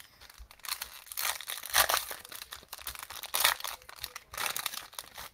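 Plastic wrappers of trading-card cello packs crinkling and tearing as they are opened and handled, in quick irregular crackles.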